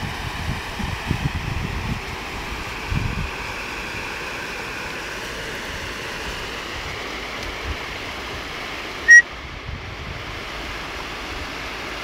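Steady outdoor rushing of river water and wind, with wind buffeting the phone's microphone in low rumbles during the first three seconds. A single short, high beep sounds about nine seconds in.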